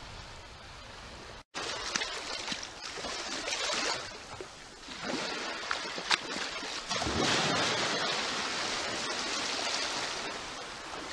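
Shallow sea water washing and lapping around wading boots at the edge of the tide, with the splash of boots in ankle-deep water; it gets louder about seven seconds in.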